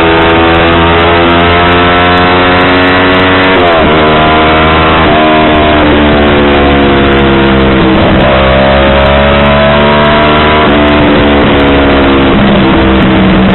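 Yamaha R25's parallel-twin engine through a WRX aftermarket exhaust, loud, its pitch climbing slowly and then dropping sharply about four times. It cuts off suddenly at the end.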